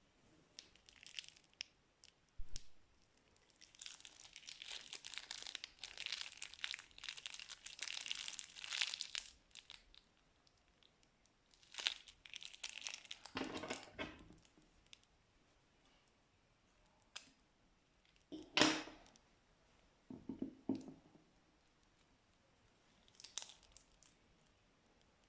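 Plastic piping bags crinkling and rustling as they are handled and squeezed, in irregular bursts with some sharper crackles. There is one longer stretch of continuous crinkling and several short bursts later.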